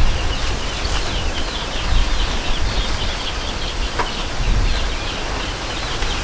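Rapid chirping of small birds, many short high notes in quick succession, over a steady low rumble and hiss of outdoor background noise.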